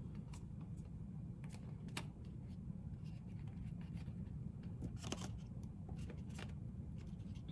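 Faint, scattered clicks and rustles of fingers fiddling a small plastic pony bead onto a rubber band at a paper cup, over a low steady room hum.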